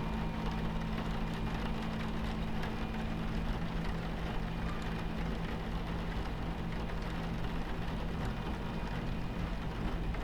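Train cabin ambience: a steady low rumble and hum from a moving train, with rain hissing and pattering against the window.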